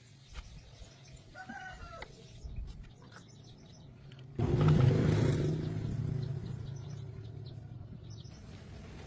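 A motor starts abruptly about four seconds in and keeps running with a steady hum that eases a little. A few bird chirps come before it.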